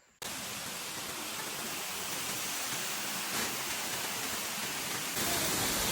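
Waterfall: a steady rush of falling water, starting abruptly just after the start and getting louder about five seconds in.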